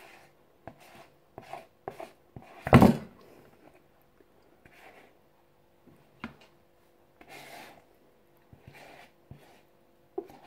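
Spatula scraping thick cake batter out of a plastic mixing bowl into metal cake tins: scattered soft scrapes and light taps, with one loud thump nearly three seconds in.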